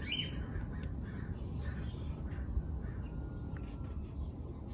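Birds calling outdoors, a string of short calls about three a second, over a steady low rumble.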